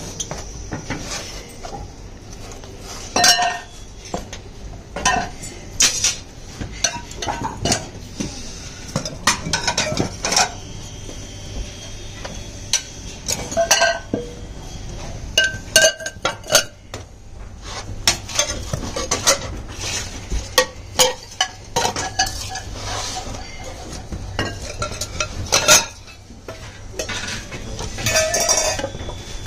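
Irregular metallic clanks and clinks of steel sand-casting flasks and iron tongs being handled during a brass pour, some knocks ringing briefly, over a steady hiss. Near the end comes a quick run of clanks as a flask is knocked out.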